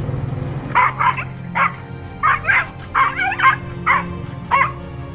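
A puppy yapping in about nine short, high yips in quick succession, over background music.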